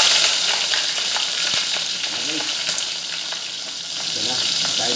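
Onions sizzling loudly in hot oil in a pan as they are sautéed, the first step of the dish, with small ticks of a utensil against the pan. The sizzle eases a little through the middle and picks up again near the end.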